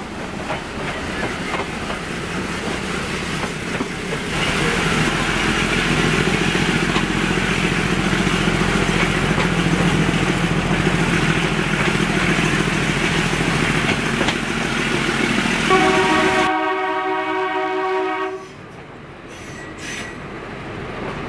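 Metre-gauge diesel passenger train running, with steady rolling noise and wheels clattering over the rail joints, louder from about four seconds in. Near the end the running noise drops away and the YDM4 diesel locomotive's horn sounds one steady blast of about two seconds.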